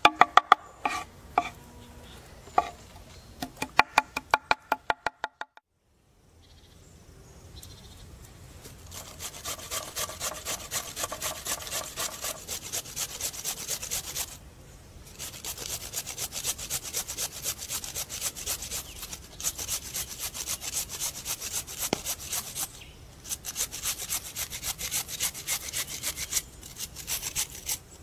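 A knife chopping fresh herbs on a wooden board in quick, ringing strokes, stopping after about five seconds. Then a carrot grated on a flat stainless-steel grater: fast rasping strokes in several long runs with short pauses between them.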